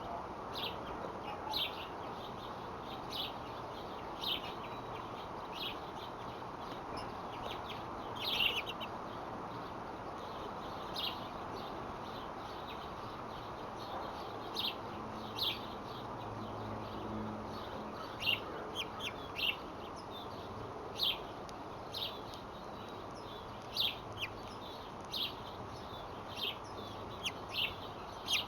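Birds chirping: short, single high chirps scattered irregularly, about one every second or two, over a steady background hiss.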